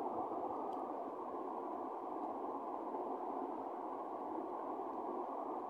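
Steady low hiss of background room noise, with a couple of faint small clicks as a plastic candy container is handled.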